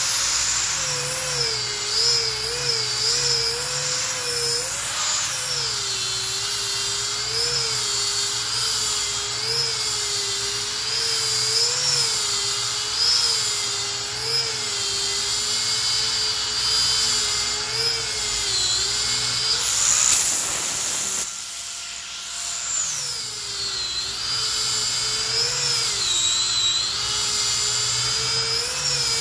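Handheld power sander with a sanding disc working a red pine slab: a steady high motor whine whose pitch dips and rises as the disc is pressed and moved over the wood. About twenty seconds in there is a short noisy burst, and the whine drops off for a couple of seconds before it picks up again.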